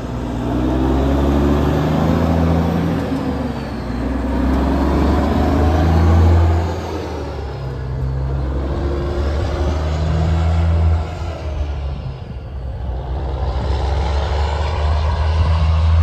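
A vehicle engine running while driving: a low rumble whose pitch rises and falls several times as it speeds up and eases off.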